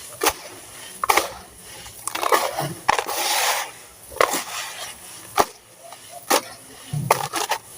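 Dry sand-cement chunks being crushed and crumbled: a series of sharp cracks and snaps, with gritty crumbling between them.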